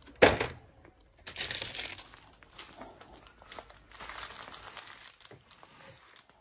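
Rustling and crinkling handling noise, in uneven stretches, with one sharp knock just after the start.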